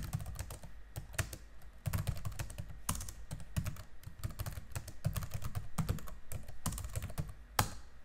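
Computer keyboard typing: a quick, irregular run of keystrokes, with one louder key press near the end as the command is entered.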